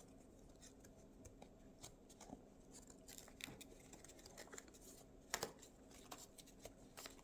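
Small punch-out cutouts being pulled off a Filter Fresh holder by hand: faint scattered ticks and tearing, with one sharper snap about five and a half seconds in.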